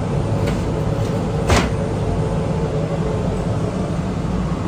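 Steady machinery rumble in a foundry, with a sharp knock about a second and a half in as a sand mould is broken away from hot, freshly cast aluminium throttle bodies on a steel grate.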